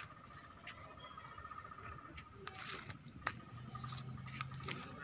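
Night insects trilling steadily: a thin, continuous high trill and a lower, rapidly pulsing one, with scattered light clicks.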